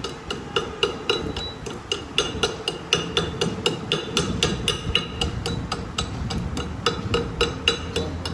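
Hammer blows on steel, struck quickly and evenly at about four a second with a short pause about a second and a half in, each blow leaving a brief metallic ring.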